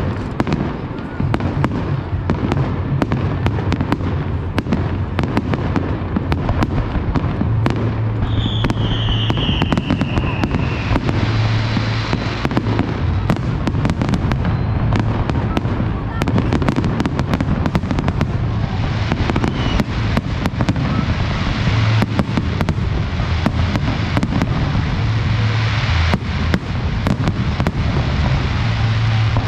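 Fireworks display in a dense barrage: a rapid, continuous stream of bangs and crackles, with a falling whistle from a whistling shell about eight seconds in.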